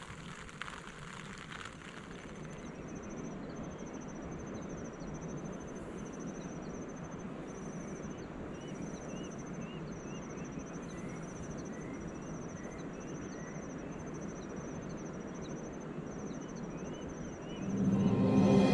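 Steady hiss of light rain, with an insect chirping in short trills about once a second and a bird giving repeated short rising calls. Music fades in near the end.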